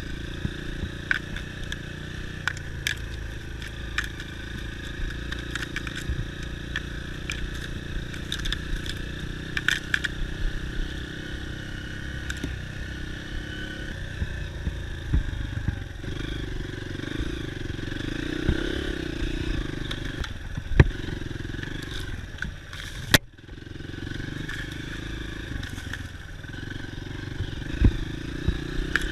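Dirt bike engine running steadily while riding, with many sharp clicks and knocks over it from the bike rattling over rough ground.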